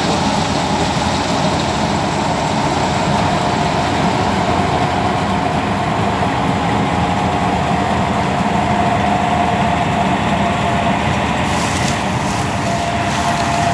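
Combine harvester's diesel engine running steadily, with a steady whine that grows stronger about halfway through. The engine is blowing excessive black smoke from its exhaust stack.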